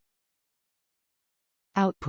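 Dead silence, then a text-to-speech voice starts speaking near the end.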